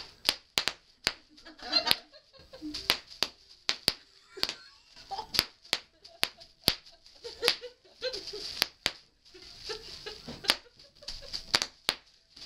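Bubble wrap popping under a toddler's stamping feet: sharp, irregular pops, about two a second, with the crinkle of the plastic sheet between them.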